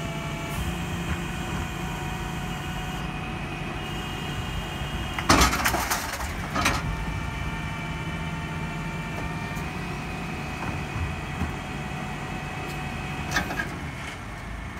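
Garwood rear-loader garbage truck running with a steady whine from its hydraulic bin lifter as it raises a wheelie bin and tips it into the hopper. Loud clattering bangs come about five and a half seconds in and again a second later as the bin is emptied, and there is a single clunk near the end as the bin is lowered.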